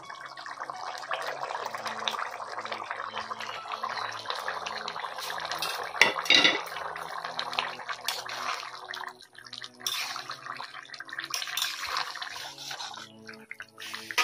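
Thick potato-and-paneer curry bubbling in a steel kadai, with a ladle knocking against the pan a few times, loudest about six seconds in.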